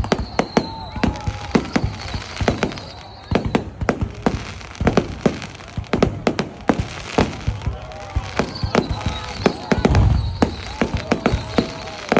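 Fireworks going off in a rapid, irregular series of sharp bangs and pops, with a heavier, deeper boom about ten seconds in.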